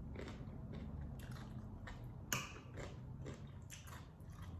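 A person chewing food close to the microphone: a string of soft wet mouth clicks and smacks, the sharpest about two seconds in, over a low steady hum.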